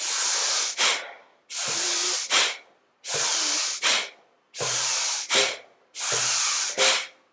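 Forceful rhythmic breathing in Bhastrika (bellows breath) style. Each cycle is a long rushing hiss of breath followed by a short sharp puff, repeating about every one and a half seconds, five times.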